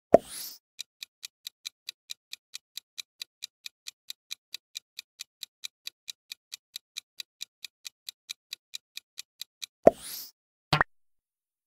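Quiz countdown-timer sound effect: fast clock-like ticking, about four ticks a second, running down as the timer counts. It opens with a sharp hit and swoosh, and a second hit and swoosh comes just before the ticking stops. A short double click follows near the end.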